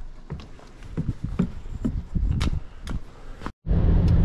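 Footsteps walking over wet, muddy ground, a little over two steps a second. About three and a half seconds in, it cuts to the steady low rumble of a car driving, heard inside the cabin.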